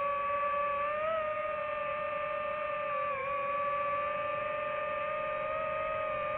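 Multirotor drone's motors and propellers whining steadily in hover, picked up by the drone's own microphone; the pitch rises briefly about a second in and dips about three seconds in as the motors adjust.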